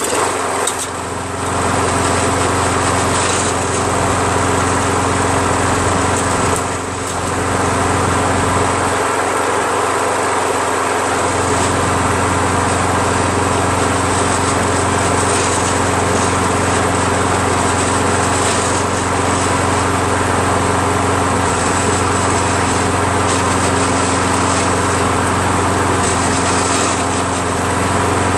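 Briggs & Stratton single-cylinder lawn mower engine, just fitted with a replacement air-vane auto-choke carburetor, catching as it is pull-started and then running steadily, dipping briefly about seven seconds in.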